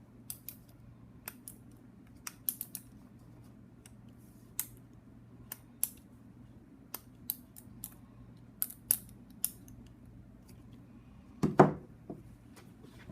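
Irregular sharp metallic clicks from a hand ratchet and its side-lock parts being worked by hand, over a low steady hum. A louder knock comes about eleven and a half seconds in.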